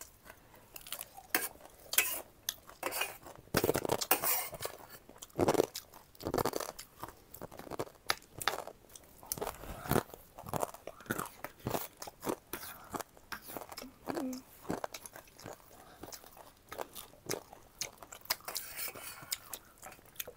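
A person chewing and crunching crunchy food, with irregular crisp crunches and chewing sounds throughout.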